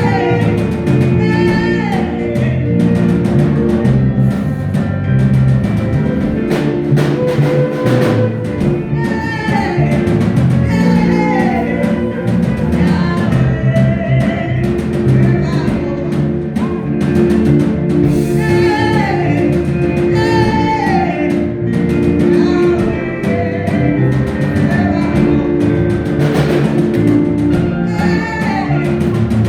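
Live praise-break band music: drum kit, bass and guitar playing a steady groove, with a lead line repeating short falling phrases throughout.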